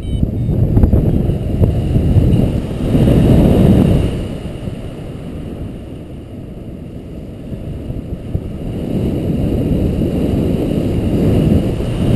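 Wind buffeting a GoPro Hero2 camera's microphone in paraglider flight: a rumbling rush that swells about three seconds in, eases off in the middle, then builds again near the end.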